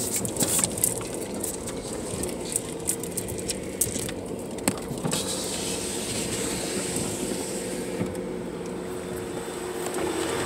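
A vehicle's engine running steadily at low speed while crawling over a rocky dirt trail, heard from inside the cabin. Sharp knocks and rattles from the bumpy ride come through the first half.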